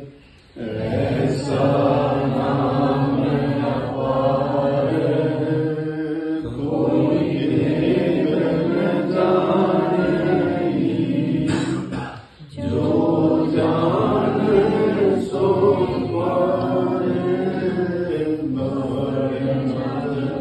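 A group of voices chanting a devotional hymn together in long held notes. The chant breaks off briefly twice, at the start and about twelve seconds in.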